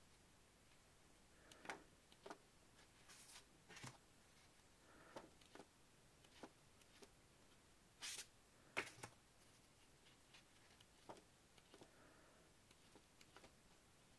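Pages of a scrapbooking paper pad being turned by hand: soft paper rustles and flicks every second or two, the loudest pair about eight seconds in.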